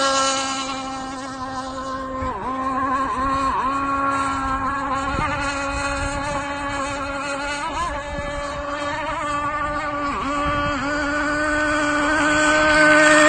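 Zenoah 29.5 cc two-stroke gas engine of an RC rigger race boat running flat out, a steady high buzz with a few brief dips in pitch. It grows louder near the end as the boat comes closer.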